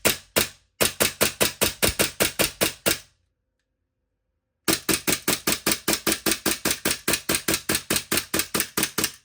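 Armourer Works G18C gas blowback airsoft pistol, powered by propane, test-firing in rapid strings of sharp cracks with the slide cycling each time, about seven shots a second. The firing stops for about a second and a half a third of the way in, then resumes.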